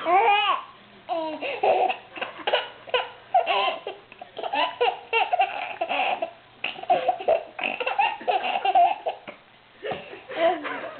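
Baby laughing hard, belly laughs in repeated bouts with short breaths between them.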